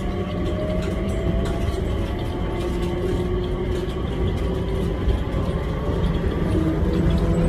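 Airport shuttle train running, heard from inside the car: a steady rumble with a few whining tones from its motors that slowly glide up and down in pitch, growing a little louder near the end.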